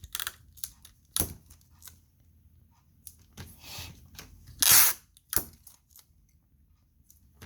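Adhesive tape pulled off a roll in short rips for taping over a cracked iPhone 7 screen, the loudest rip about two thirds of the way through, with small handling clicks between.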